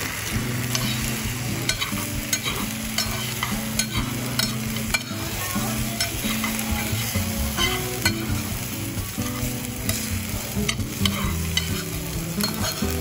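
Egg fried rice sizzling on a hot iron teppan plate while a metal spoon stirs and scrapes it. Frequent small clicks of the spoon against the iron run through the sizzle.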